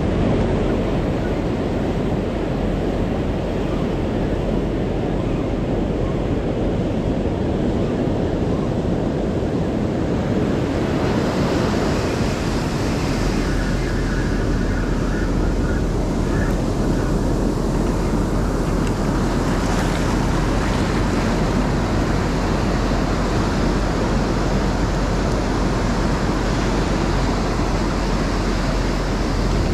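Ocean surf on a beach with wind buffeting the microphone: a steady, unbroken noise heavy in the low end.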